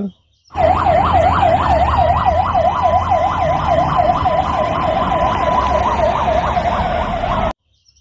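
Fire engine siren in a fast yelp, its pitch rising and falling about three times a second over a steady tone, with a low rumble beneath. It starts about half a second in and cuts off suddenly near the end.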